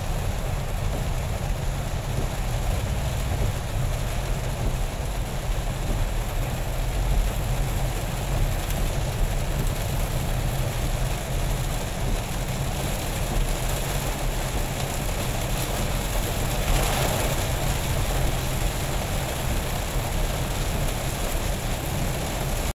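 Car cabin noise while driving through a heavy rainstorm: a steady low road-and-engine rumble with the hiss of rain on the roof and windshield, swelling briefly about three-quarters of the way through.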